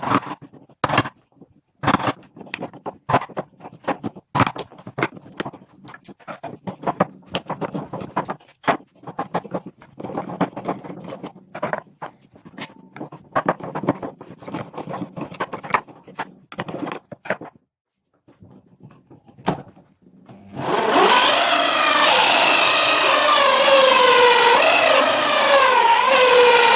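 Irregular scraping and knocking strokes on a pine block for about seventeen seconds. Then a pause, a single click, and a small electric power tool starts and runs loudly, its pitch wavering as it works.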